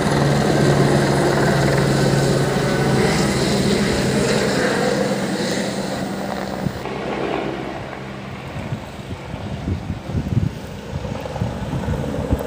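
Firefighting helicopter flying overhead, a loud steady rotor and engine drone. About seven seconds in it drops away abruptly, leaving quieter irregular low thumps and rustling.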